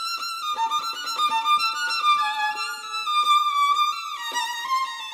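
Background music: a violin playing a slow melody of long held notes.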